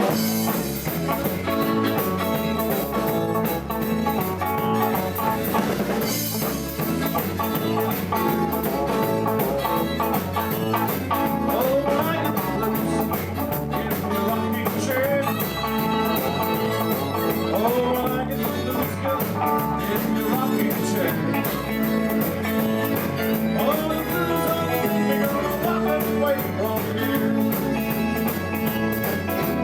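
Live band playing a blues-style rock and roll instrumental passage, with guitar over a drum kit keeping a steady beat.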